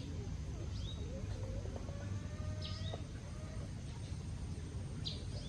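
Short, high bird chirps, three of them a couple of seconds apart, with a faint, longer, lower call in the middle, over a steady low outdoor rumble.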